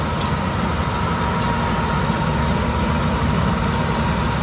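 Yanmar AW82V combine harvester's diesel engine running steadily under load, with a steady whine over the low engine sound.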